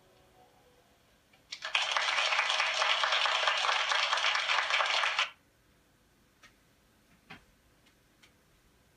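Audience applause that starts about a second and a half in, runs for about three and a half seconds and stops abruptly, followed by a few faint clicks.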